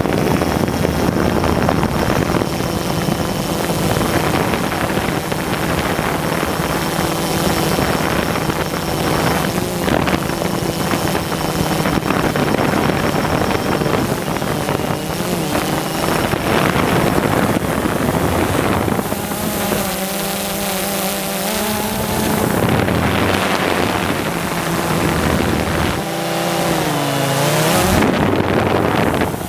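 Quadcopter drone's motors and propellers whirring steadily with a high whine. In the last third the pitch wavers and glides up and down as the motors change speed.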